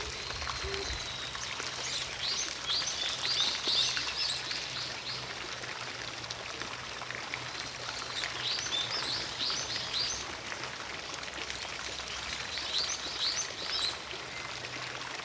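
Songbird singing three bursts of quick, high chirping notes a few seconds apart, over the steady splashing of a distant fountain.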